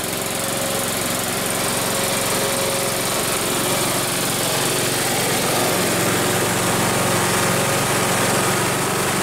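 Kohler Courage 18 hp engine of a Kubota T1880 riding mower running steadily, on its first run after its seized cylinder was freed with ATF; it runs smoothly, with plenty of compression.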